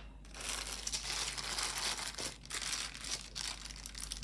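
Clear plastic bag crinkling and rustling as hands open it and work the jewelry inside, a steady rustle with a few sharper crackles.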